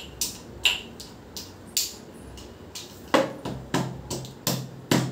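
Metal pestle pounding peanuts in a small metal mortar cup, a run of clinking strikes. They are spaced out at first, then come faster and heavier from about three seconds in.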